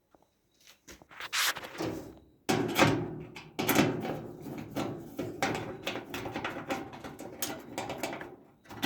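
Irregular knocking, clattering and scraping of sheet-metal dryer parts being handled and worked on, starting about a second in.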